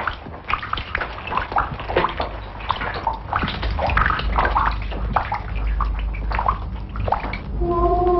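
Water dripping and splashing irregularly over a low rumble, falling in drops and trickles from overhead chain and pipework. Near the end a single held musical note comes in.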